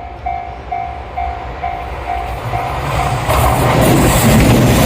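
Train sound effect: a pitched warning ding repeats about twice a second, then a loud train rumble rises and carries on to the end.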